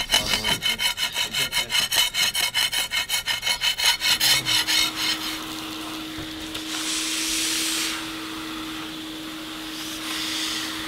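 Metal hand scraper scraped quickly back and forth on a bare concrete slab, about four strokes a second, lifting dried residue; the scraping stops about five seconds in. A wet-dry vacuum runs with a steady hum from about four seconds in, its floor nozzle sucking up liquid from the concrete with a louder hiss twice.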